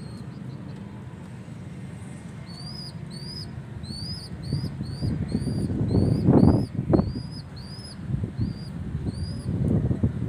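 Pigeon squab begging from its parent: a thin rising squeak repeated about twice a second, with a loud flurry of wing-flapping about six seconds in as it pushes at the parent to be fed.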